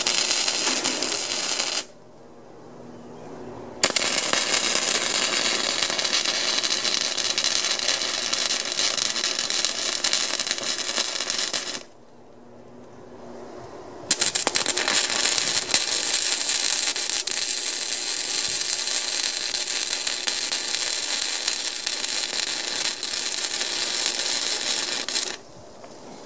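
Wire-feed (MIG) welder arc crackling as a steel bracket is welded onto square steel tubing. A first weld stops about two seconds in, then two longer welds follow after short breaks, the last ending just before the end.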